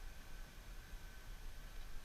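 Faint, uneven low rumble and hiss with a thin, steady high tone: open-air background with no distinct event.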